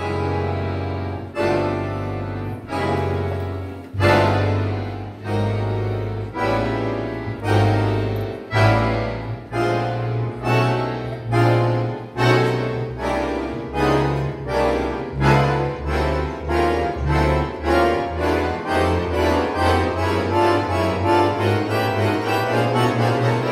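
Accordion quintet playing short repeated chords over bass notes, the strokes coming faster and faster until they almost run together, like a train gathering speed.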